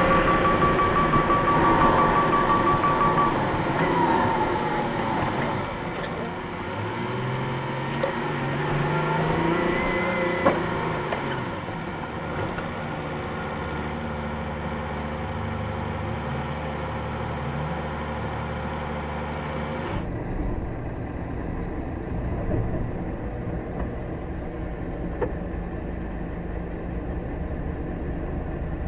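HGV diesel engine heard from inside the cab, its pitch falling in steps as the lorry slows to a stop, then idling steadily. A single click sounds about ten seconds in.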